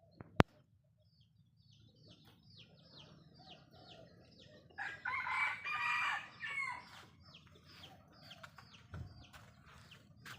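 A rooster crows once, loud and drawn out, starting about five seconds in. Behind it a small bird repeats short falling chirps, about three a second, and there is a sharp click right at the start.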